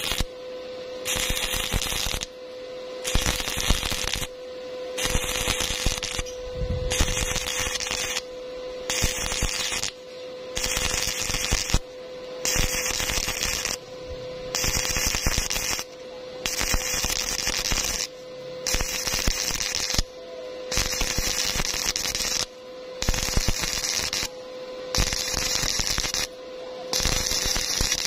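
Stick-welding arc on thin galvanized square tube crackling in regular bursts, about one second on and one second off, as the electrode is struck and lifted again and again: the stop-start stitch technique used to keep thin tube from burning through. A steady hum runs underneath.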